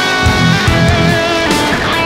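Background rock music led by electric guitar, with sustained notes over a steady beat.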